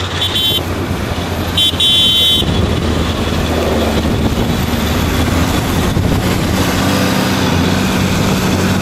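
High-pitched beeping in two short bursts during the first two and a half seconds. Then a tractor engine runs steadily under load as a Deutz-Fahr tractor pulls a Spedo disc harrow through the soil.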